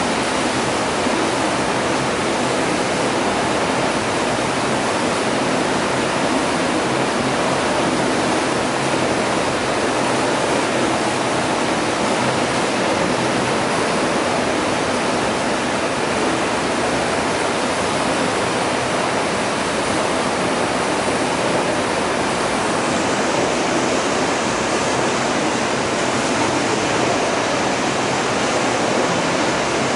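Steady, unbroken rush of flowing and falling water in a water-treatment filtration unit.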